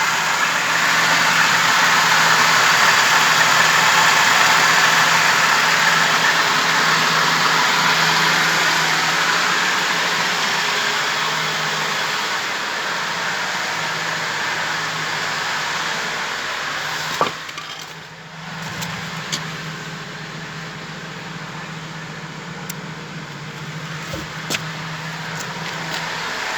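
ZMZ-406 four-cylinder petrol engine idling evenly, with a steady hum and a broad hiss. About two-thirds of the way through there is a sharp click and the sound drops quieter, followed by a few light ticks.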